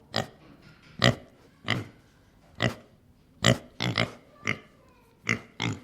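An animal giving about ten short grunts at uneven intervals, each clipped and brief.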